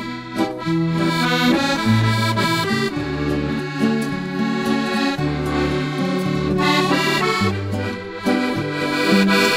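Accordion playing the melody over a stepping bass line in the instrumental break of a habanera arranged as a bolero, with no singing.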